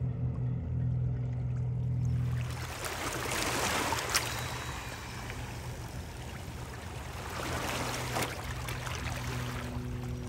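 Water lapping and splashing against a rocky shoreline, an even wash of noise, with two sharp clicks about four and eight seconds in. Soft background music with low sustained notes at the start and again near the end.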